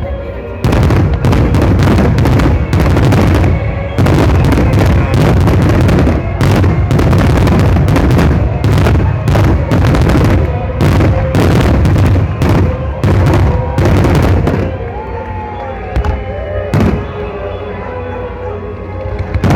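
Dense barrage of fireworks explosions, several booms a second, easing off about fifteen seconds in, with one last single bang near the end.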